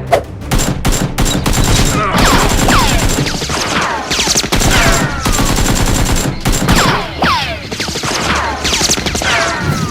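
Rapid gunfire sound effects: many shots in quick succession, with repeated falling whines over them.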